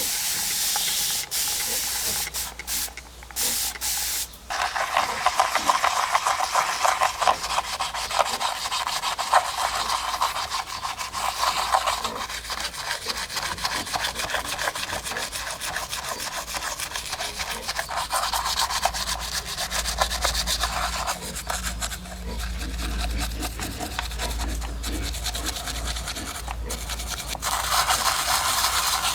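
Steady scrubbing on the body of a mud-covered 1:24 diecast model car: a dense, scratchy rubbing of rapid small strokes. It comes in short broken bouts for the first few seconds, then runs on continuously.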